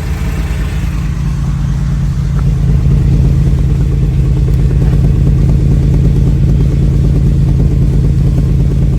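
1995 Toyota 4Runner's 3.0 L V6 idling steadily, heard through its MagnaFlow exhaust, getting a little louder a couple of seconds in.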